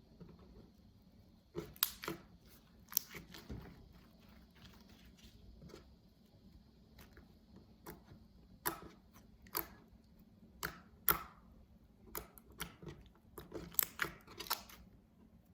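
Glossy homemade glue-and-borax slime being poked and kneaded by hand, giving off irregular wet clicks and small pops, busier near the end.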